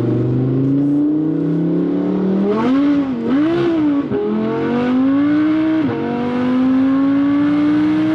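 Audi R8 V10 accelerating through a B-Rogue titanium valved exhaust: the engine note swells up and down twice, then climbs steadily and drops sharply at an upshift about six seconds in before climbing again.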